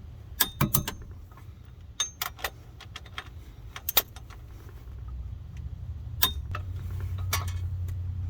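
Scattered metallic clinks and knocks from tools and car parts being handled, with a low rumble that grows louder from about five seconds in.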